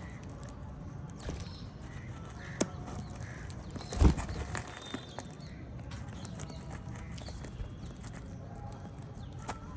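Small caged parrots chirping faintly now and then over a steady low hum, with a few sharp clicks and one loud knock about four seconds in.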